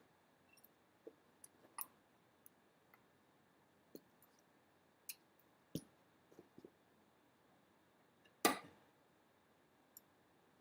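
Scattered light clicks and knocks of tools and parts being handled, about a dozen at uneven spacing, with one louder knock about eight and a half seconds in.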